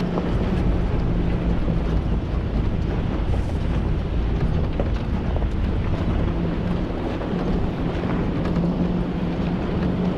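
Toyota Sequoia's engine running steadily at low trail speed over a low rumble of the drive on rough gravel, with wind buffeting the microphone.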